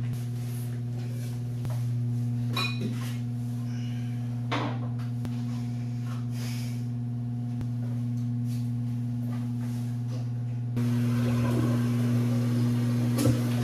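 A steady low electrical hum, with a few light clicks and knocks of toilet tank parts being handled. About eleven seconds in, a louder steady hiss starts suddenly.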